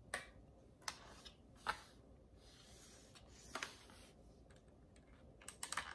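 Faint, scattered clicks and taps of steel scissor blades and plastic keys on a computer keyboard as a keycap is pried at, with a quick run of clicks near the end.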